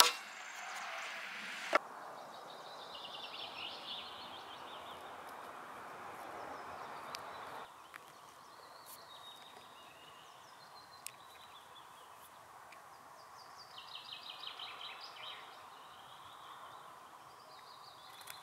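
Small birds chirping and trilling over a faint outdoor hiss. There is a single sharp knock about two seconds in, and the hiss cuts off abruptly about halfway through.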